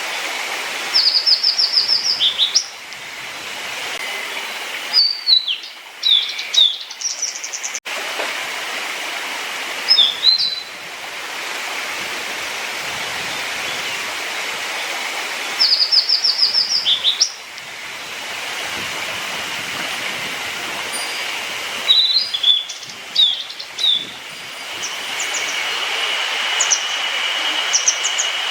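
A small songbird singing repeated phrases: a quick run of high notes followed by a few lower notes, over a steady rushing background like running water.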